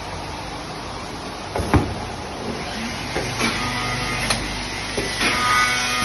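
CNC drilling and dowel-inserting machine working through its cycle: a sharp knock about two seconds in, then electric drive motors humming in short runs, with a few clicks between them.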